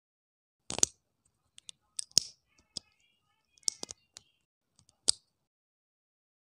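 Hard plastic Lego pieces clicking and snapping together as a small motorcycle is put together by hand: about ten sharp, irregularly spaced clicks, with several louder snaps among them.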